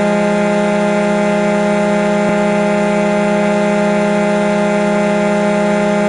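The Thunder Bay Kings' ice hockey goal horn sounding one long, loud, steady blast, a low note with many overtones.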